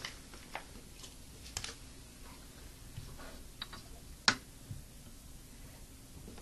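A glass microscope slide being swapped on the microscope stage: a few faint, scattered clicks and taps of glass and metal, with one sharper click a little past four seconds in.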